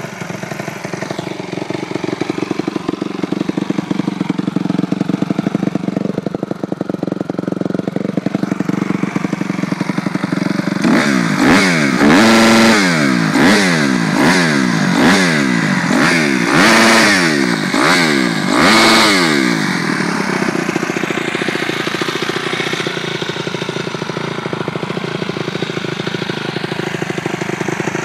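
Honda CRF250R's single-cylinder four-stroke engine idling, then revved hard in about ten quick throttle blips, a few held briefly at the top against the rev limiter, before settling back to idle.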